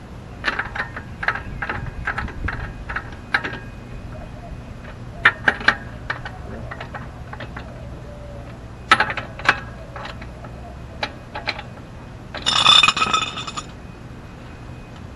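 Scattered metallic clinks and taps of hand tools at the wheel. A denser metallic rattle lasting about a second comes near the end.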